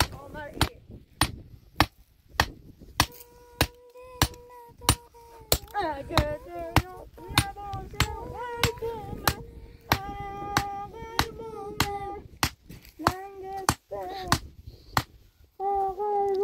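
Steady, evenly spaced hammer-like knocks, about one and a half a second, while a voice sings slow, long-held notes over them.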